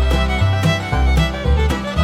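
Old-time fiddle tune: the fiddle plays the melody over a bass line and a steady beat of about two strokes a second.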